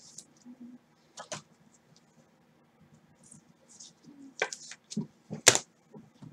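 Trading cards and pack wrappers being handled: scattered light clicks and scratches, thicker in the second half, with one sharp click about five and a half seconds in.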